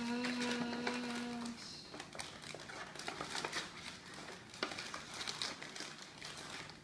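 Tissue paper and foil blind bags rustling and crinkling inside a paper gift bag as a hand rummages through them. A child's voice holds one steady hummed note for about the first second and a half.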